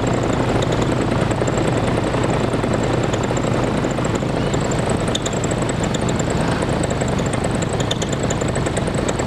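Small aircraft's carburetted piston engine running steadily in flight, with a constant low drone and wind rushing past, heard from on board.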